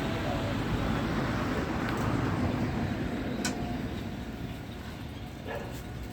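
Steady low rumbling outdoor background noise that eases off after about four seconds, with one sharp click about three and a half seconds in.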